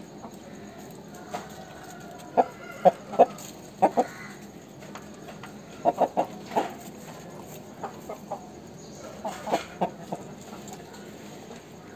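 Aseel chicken clucking: short, sharp clucks in groups of two to four, coming every second or two.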